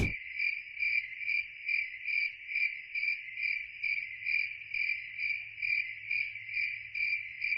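Cricket chirping in an even rhythm, about two or three chirps a second. It starts abruptly and nothing else is heard under it.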